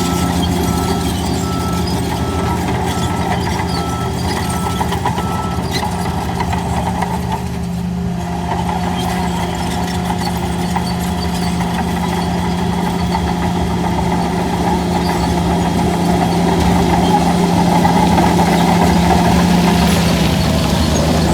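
Heavy diesel engine of a Hyundai earthmoving machine running steadily under work, its pitch holding even. For the first five seconds or so a reversing alarm beeps about once a second over it.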